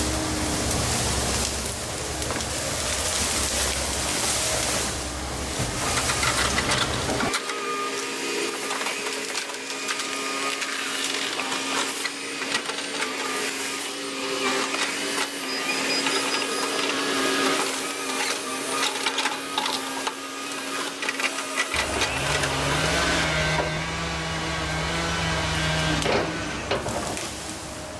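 Volvo ECR145EL excavator's diesel engine and hydraulics running steadily under working load, with scattered sharp clicks and cracks. The deep low rumble drops away about seven seconds in and comes back about twenty-two seconds in.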